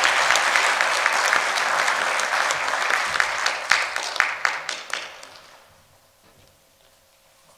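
Audience applauding. The clapping thins out to a few scattered claps and dies away about five seconds in.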